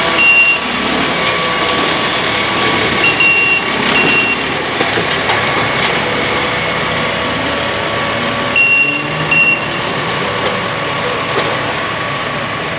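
Small self-propelled rail maintenance machine running as it travels along the track, its engine and wheels making a steady noise. Short high-pitched electronic warning beeps sound several times: once at the start, twice around three seconds in, and twice again about nine seconds in.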